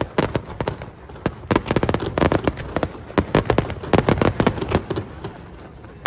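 Aerial fireworks going off in rapid runs of sharp cracks and pops, many per second, with short lulls between the runs.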